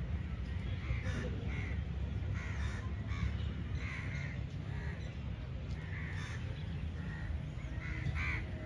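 Crows cawing, a string of short calls about every half second to a second, over a steady low outdoor rumble.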